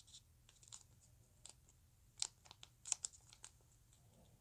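Origami paper being folded and creased by hand: faint, scattered crinkles and crisp little crackles of paper, the loudest about two and three seconds in.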